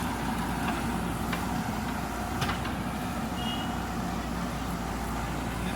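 JCB backhoe loader's diesel engine running steadily, with a few sharp knocks and a brief high double beep a little past halfway.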